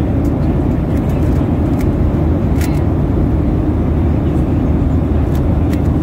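Steady low cabin noise of an airliner in flight: engine and airflow noise. Over it come a few sharp clicks from the plastic layers of a Rubik's cube being turned, the clearest about halfway through.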